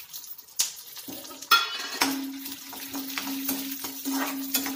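Whole spices (dried red chillies, coriander seeds, cumin, peppercorns) dropped into a little hot oil in a kadai and stirred with a spatula: light sizzling with repeated scrapes and clinks of the spatula on the pan. There is a sharp clink about a second and a half in, and a steady low hum from about two seconds in.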